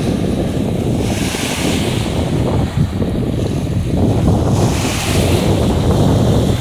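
Small waves breaking and washing up a sandy beach, their hissing wash swelling twice, with wind buffeting the microphone.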